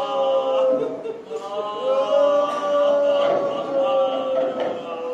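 Men's voices wailing in mourning, in long held cries that slide slowly down in pitch, one voice leading with others under it. This is the lamenting weeping of mourners at the climax of the account of Abbas's death.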